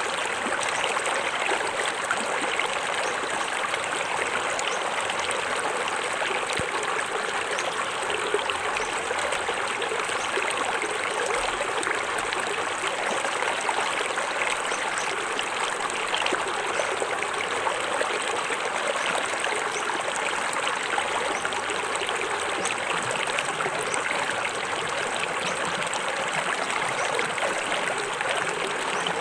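Small forest waterfall and its stream, water splashing and trickling steadily over rocks.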